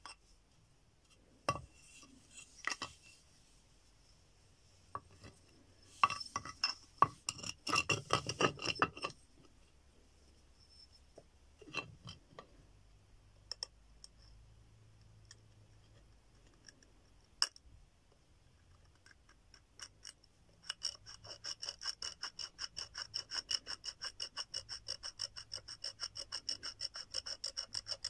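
Stone flake working an animal long bone: scattered sharp clinks and taps of stone on bone, thickest about six to nine seconds in, then from about twenty seconds in a fast, even run of scraping strokes as the flake rasps along the bone.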